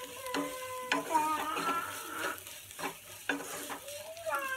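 Spatula stirring and scraping bitter gourd pieces around a non-stick frying pan, with a light sizzle of frying and irregular knocks of the spatula. A long, wavering high-pitched cry sounds over the first half and again near the end.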